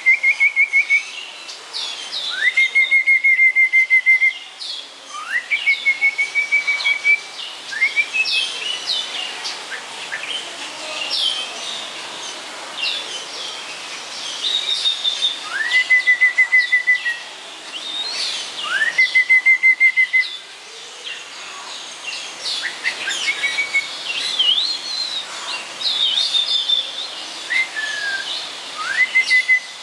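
Snowy-crowned robin-chat singing: loud whistled phrases, each a quick upward slide into a level, quavering note about a second long, repeated every two or three seconds, with a pause of several seconds midway. Shorter, higher chirps and twitters fill the gaps between phrases.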